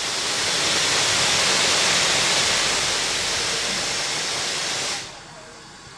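Steam locomotive venting a loud, steady hiss of steam that cuts off abruptly about five seconds in.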